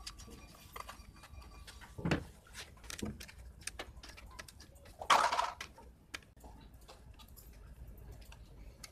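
Small clicks, taps and rustles of pliers, a screwdriver and stiff wires being handled on a switchboard as a fan dimmer's terminal screws are worked. A louder noise lasting about half a second comes just after five seconds in.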